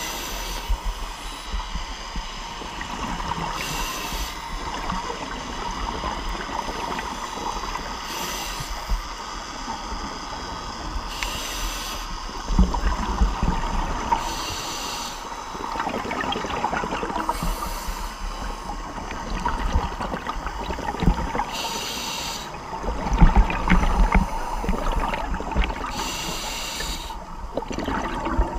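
Scuba regulator breathing heard underwater through a camera housing: a hissing rush of exhaled bubbles every few seconds over a steady muffled underwater wash.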